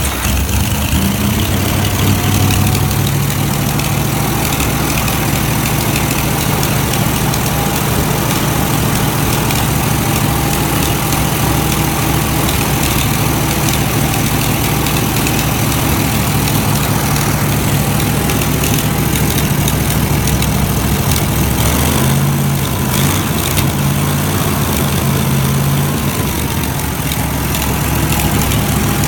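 Wisconsin VE4 air-cooled V4 engine running steadily on the shop floor just after starting, its note briefly changing a little past two-thirds of the way through. It is running pretty good, with electronic ignition and the firing order set to 1-4-3-2.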